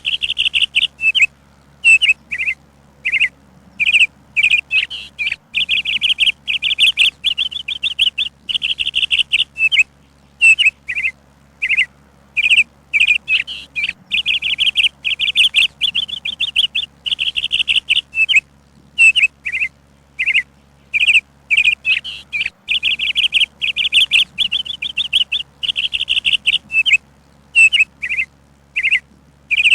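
Small songbird chirping: runs of quick, repeated high notes, each run about a second long, broken by short pauses and single chirps.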